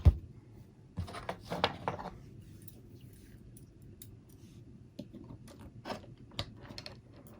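Small clicks, taps and rattles of tools and small parts being handled and set down on a workbench, in irregular clusters.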